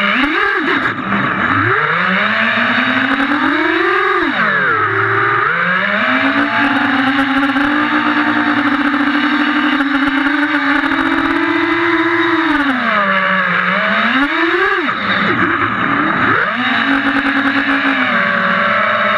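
FPV quadcopter's electric motors and propellers whining, heard close from the onboard camera. The pitch drops sharply and climbs back several times as the throttle is cut and opened again for loops, holding steady in between.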